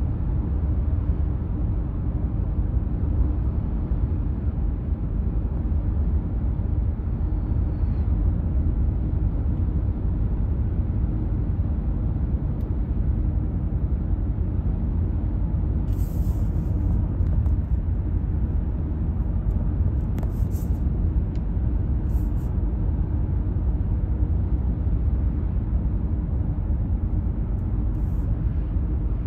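Steady low road rumble of a moving car, tyre and engine noise heard from inside the cabin.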